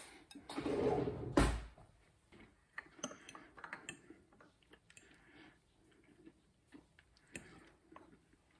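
A china bowl is set down on a granite countertop with a single knock about a second and a half in. Light clicks and scrapes of a metal fork against the bowl follow as food is picked up.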